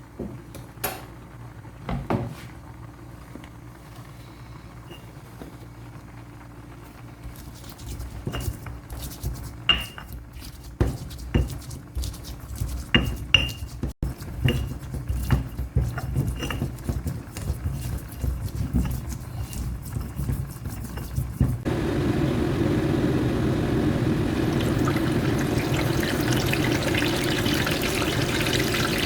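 Kitchen utensils and dishes clinking and knocking, sparse at first and then busy. About three-quarters of the way in, water starts running steadily.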